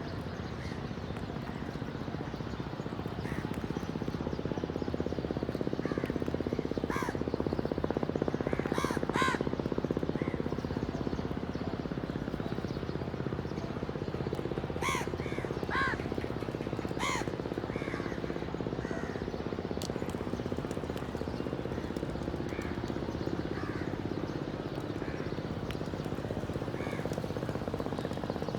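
Crows cawing: short harsh caws in small groups, the loudest a few about a third of the way in and three spaced caws around the middle, with fainter ones scattered between, over a steady low rumble.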